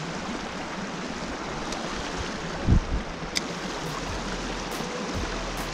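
Creek water running steadily over a riffle, with a brief low thump about two and a half seconds in and a light click shortly after.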